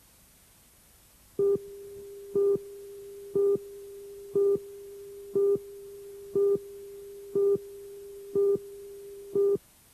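Electronic beeping: a low steady tone with a louder beep about once a second, nine beeps in all, starting about a second and a half in and stopping just before the end.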